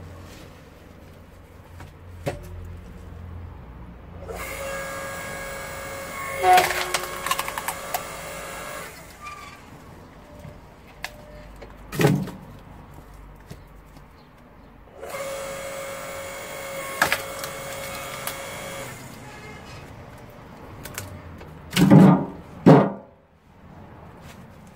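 AL-KO KHS 5204 electric hydraulic log splitter running under load twice, each time for about four and a half seconds, with a steady whine as the ram pushes a log through the wedge and sharp cracks of the wood splitting. Heavy knocks of split wood being handled come about halfway through and twice near the end.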